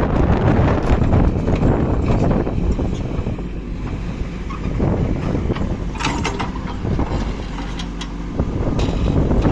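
Heavy diesel vehicle engine running, a dense low rumble with wind buffeting the microphone, and a brief metallic rattle about six seconds in.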